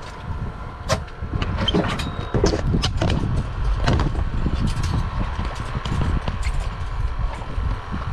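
Fishing boat's engine running, heard on board as a steady low rumble with a faint whine, with scattered knocks and clicks of gear on deck.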